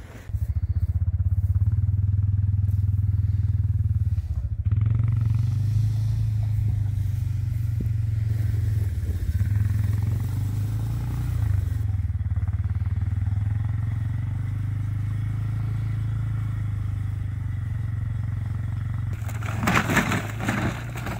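Small petrol engine running steadily under load, driving the winch rope that hauls a heavy ton bag up the slope. Near the end a rustling, scraping noise joins in.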